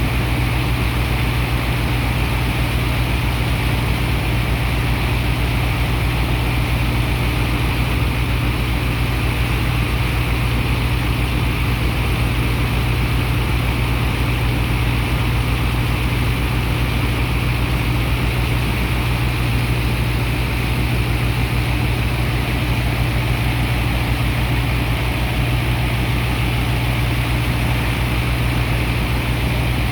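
Heavy diesel engine of a sand dredger running steadily at constant speed, a deep even drone that does not change.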